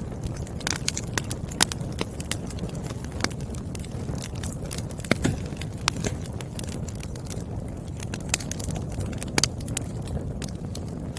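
Burning firewood crackling: irregular sharp pops and snaps, a few louder than the rest, over a steady low rumble of the fire.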